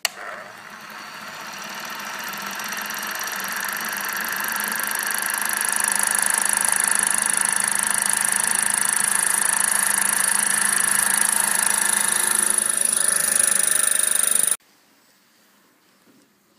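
Small watchmaker's lathe running, its electric motor and spindle giving a steady high whine while the cutting tool is fed into a watch bezel to turn a groove. The sound grows louder over the first several seconds, holds steady, and then cuts off suddenly.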